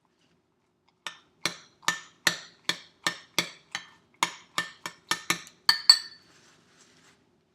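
Kitchenware clinking: about fourteen sharp, ringing clinks in quick, even succession, two or three a second, stopping about six seconds in.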